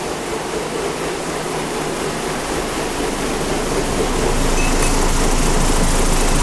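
Giant GB3 vibratory tumbler running, its bowl of deburring media churning with a steady rushing hiss over a low motor hum, growing louder about four seconds in.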